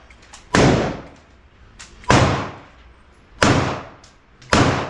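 9mm pistol shots fired one at a time, four shots roughly a second to a second and a half apart, each followed by a short echoing tail.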